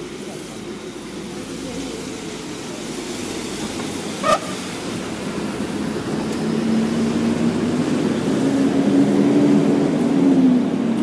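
Road traffic on a city street: a steady hum of tyres and engines that grows louder as a city bus drives past, its engine a low drone in the second half. A single short, sharp rising squeak comes about four seconds in.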